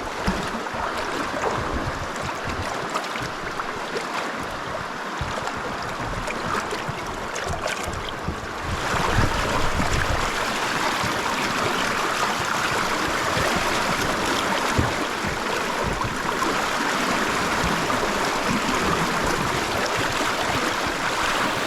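Rushing water of a shallow river riffle, a steady wash that grows louder about nine seconds in, with scattered low thumps.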